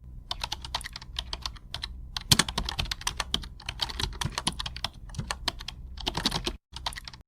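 Typing on a computer keyboard: quick runs of sharp key clicks with short pauses between them, over a low steady hum.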